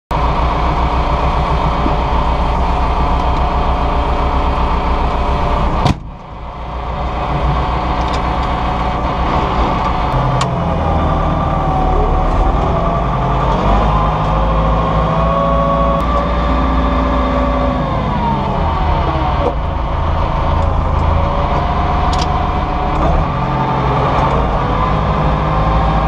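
County tractor's diesel engine running under load while ploughing, heard from inside the cab. A higher whining note over the engine dips, rises, holds steady and then falls away through the middle stretch, and the sound drops briefly about six seconds in.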